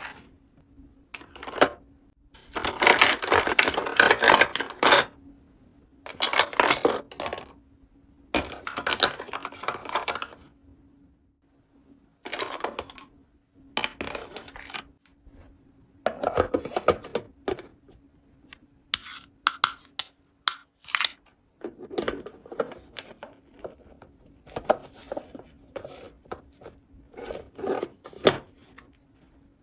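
Small plastic toy playset pieces being handled and set down, clicking and clattering, with several longer bursts of plastic packaging rustling and crinkling.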